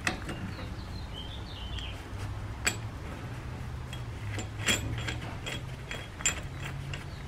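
Metal clicks and ticks from a brake caliper piston wind-back tool being threaded by hand against a rear brake caliper, snugging its backing plate up before the piston is wound in. A few sharp clicks stand out, the loudest about two and a half and four and a half seconds in.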